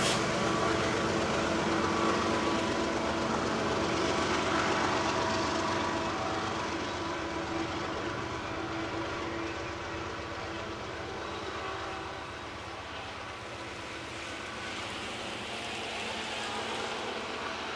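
BNSF unit freight train rolling past, its cars running on the rails with a steady rumble and several held tones. The sound gradually fades as the train moves away.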